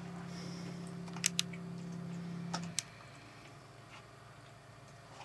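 Cat biting and chewing blades of cat grass: a few small crisp clicks and crunches, over a steady low hum that stops about halfway through.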